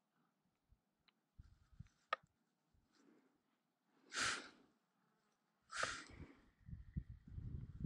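Two breathy exhalations like sighs, about a second and a half apart, followed near the end by a low, uneven rumble.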